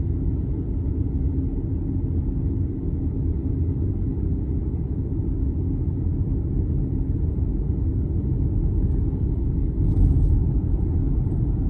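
Steady low road rumble of a moving car, engine and tyres as heard from inside the cabin. About ten seconds in, the noise swells briefly as the car drives into a road tunnel.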